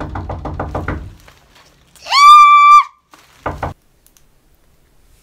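A loud, high-pitched vocal squeal about two seconds in: it rises, is held for under a second, and stops. Before it comes a quick run of rapid pulsing sounds, and a short low vocal sound follows about a second after.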